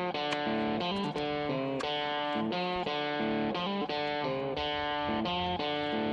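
Background music: electric guitar playing a run of notes that change about every half second.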